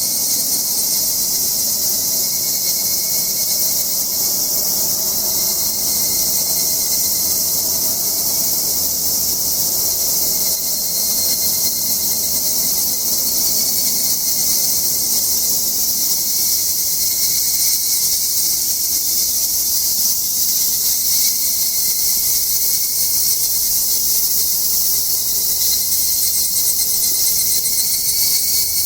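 Chorus of cicadas calling: a steady, high-pitched buzz that keeps on without a break.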